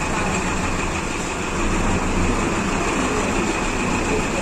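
Steady street traffic noise on a busy town street, with vehicle engines running close by.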